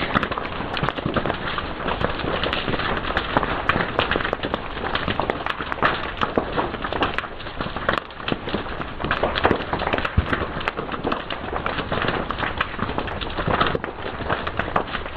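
Fire crackling: a steady hiss broken by many quick, irregular pops and snaps.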